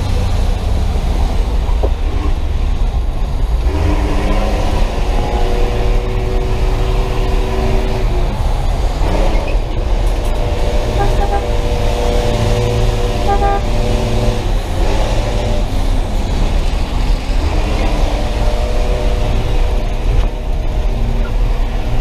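Chevrolet school bus engine running hard, heard from inside the cab over a steady rumble and road noise. A vehicle horn sounds in three long blasts of several seconds each, about four, eleven and eighteen seconds in.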